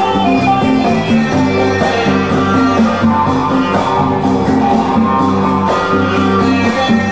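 Runway show music: an instrumental track of held notes that keep changing in pitch, at a steady level.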